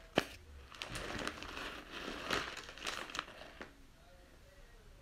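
Plastic packaging and bags crinkling and rustling as groceries are handled in a shopping cart, with irregular sharp crackles, quieting down about three and a half seconds in.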